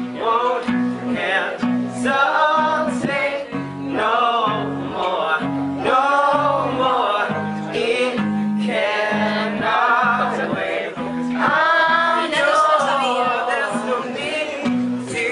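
A song with a male singing voice over guitar and a repeating bass line.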